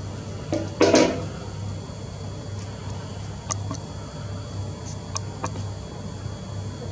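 Handling noise on a compact camera held on the moon: a loud knock about a second in, then a few light clicks, over a steady low hum.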